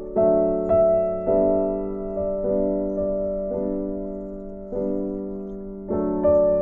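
Background music: a slow, gentle piano-style keyboard melody, notes and chords struck every half second to a second and left to ring and fade.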